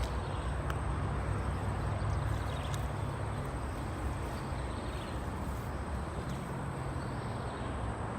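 Steady outdoor background noise: a low rumble with a faint, steady high-pitched whine over it and a few faint clicks.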